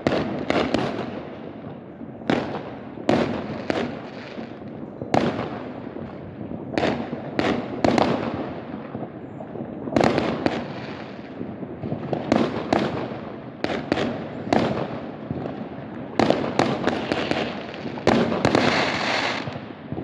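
Fireworks going off: a steady stream of sharp bangs at irregular intervals, some in quick clusters, over a continuous rumble of further bursts, with a dense crackling stretch near the end.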